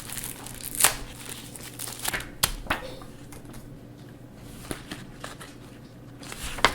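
Hands handling plastic parts and packaging: a few sharp clicks and knocks with light crinkling in between.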